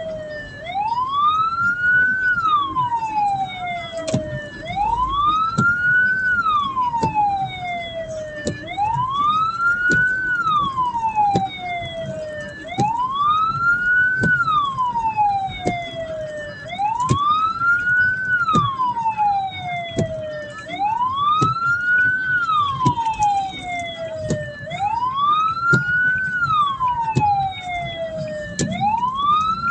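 Hearse's siren sounding a slow wail, its pitch rising quickly and then falling more slowly in a cycle of about four seconds, repeating steadily.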